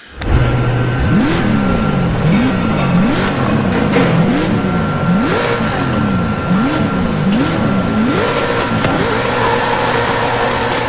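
Car engine starting abruptly and then revving hard over and over, its pitch sweeping up and falling back about once a second, with bursts of tyre squeal: the sound of a car drifting and doing donuts.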